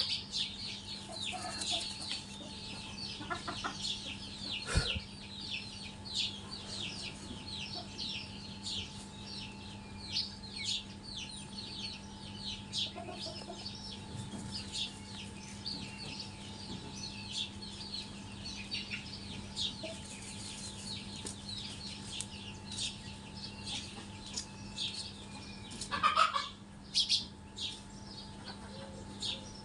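A brood of native chicks peeping without pause, many short high falling cheeps overlapping, with a few louder calls near the end.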